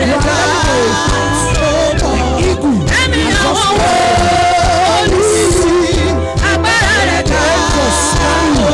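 Gospel worship music: voices singing slow, drawn-out lines over sustained deep bass notes.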